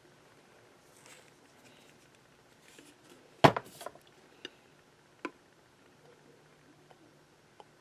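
Quiet handling of a Zippo lighter as it is taken apart for refilling: faint rustling, one sharp click about three and a half seconds in, then a few smaller clicks.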